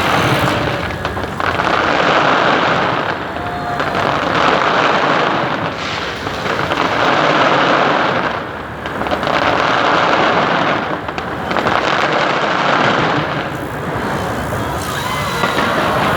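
Fireworks display bursting continuously: a dense crackle of many small reports and booms that swells and eases in waves every two to three seconds.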